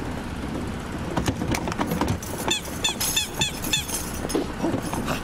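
Cartoon sound effects: a run of quick high squeaks, several a second, begins about halfway through, over a steady low rumble and a few scattered knocks.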